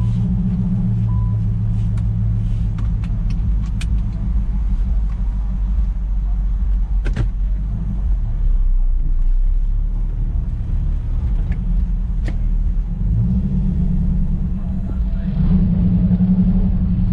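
Infiniti M45's V8 engine and road noise heard from inside the cabin on a drive, a steady low drone. A couple of short sharp knocks come in the middle, and the drone grows stronger near the end.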